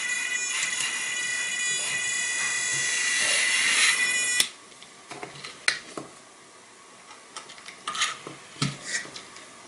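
Background music that cuts off suddenly a little over four seconds in. After that come scattered light clicks and knocks as a hand grabs and lifts a small two-wheeled balancing robot off the desk.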